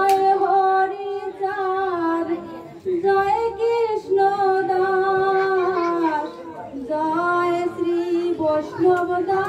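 A woman singing a Bengali devotional hymn (bandana) into a microphone, holding long notes that waver in pitch, with two short pauses.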